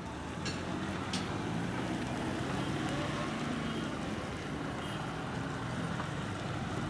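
A convoy of small vans, Maruti Omnis among them, and cars driving past one after another, a steady mix of engine hum and road noise, with a couple of brief clicks about a second in.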